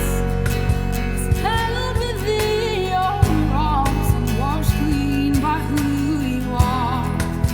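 Worship song played by a band: a lead voice singing the melody over steady drum hits, bass and guitar.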